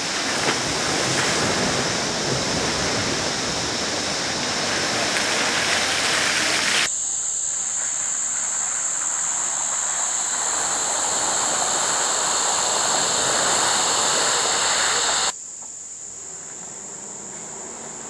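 Rushing river water as a Suzuki Jimny 4x4 wades through a creek crossing. After a sudden cut, the Jimny splashes through a muddy puddle while insects buzz in a steady high drone. Near the end the sound drops to a quieter scene where the insect drone goes on.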